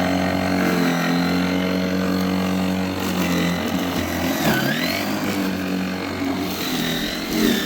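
Worx 40 cm battery lawnmower running at full speed, its electric motor and spinning blade giving a steady whine. About four and a half seconds in, the pitch dips briefly and then recovers.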